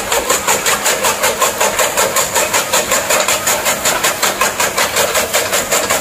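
Electric chaff cutter chopping green grass stalks into cattle fodder as they are fed in by hand. Its blades cut in a fast, even rhythm of about five chops a second over the steady run of the motor, with a high whine on top.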